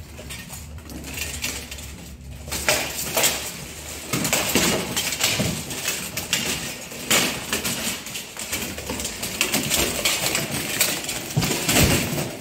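Steel plate armour clanking and rattling, with sharp metal-on-metal strikes, as two armoured fighters close in and grapple. It gets busier about two and a half seconds in, and a heavier thud comes near the end as they go down onto the rubber floor.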